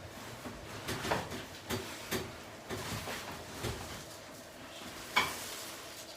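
Rustling, shuffling and soft knocks of a patient turning over on a padded chiropractic treatment table, with a single sharp thud about five seconds in.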